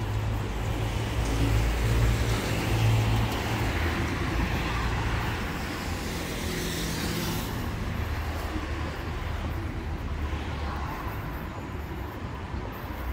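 Road traffic close by: car engines rumbling and tyre noise of cars passing in the nearest lane. The rumble is strongest in the first few seconds, and a passing car's hiss swells and fades around the middle.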